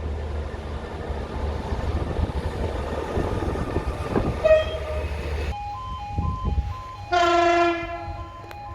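A train sounds its horn in one short, loud blast about seven seconds in, after a stretch of rumbling train noise with a brief toot. Around the blast, a two-note beeping alternates steadily between two pitches.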